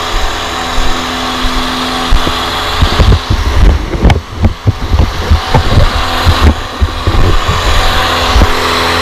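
Finn bark blower's engine and blower running steadily, with a run of irregular low thumps through the middle.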